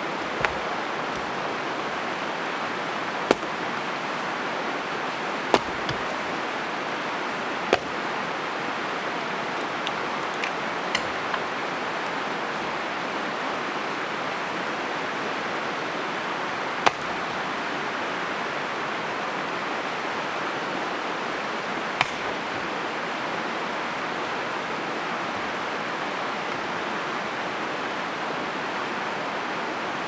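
Steady rushing of a river, with the sharp cracks of an axe splitting firewood rounds: about six loud strikes spaced several seconds apart and a few lighter knocks near the middle.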